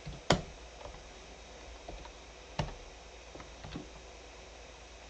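Scattered computer keyboard keystrokes, a few separate clicks: the loudest about a third of a second in, another a little after two and a half seconds, and several fainter ones between.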